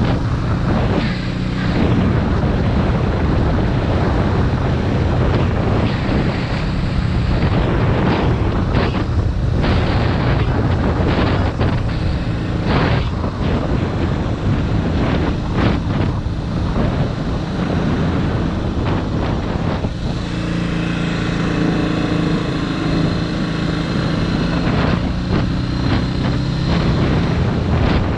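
Suzuki DR650RSE's single-cylinder four-stroke engine running while the motorcycle is ridden along the road, with wind buffeting the microphone. From about twenty seconds in the engine note holds steadier and clearer.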